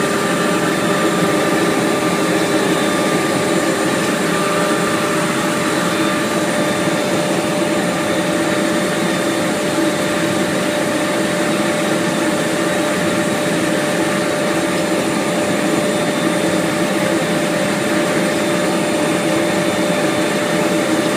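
A machine motor runs steadily and loudly, a constant hiss with a steady whine in it that does not change.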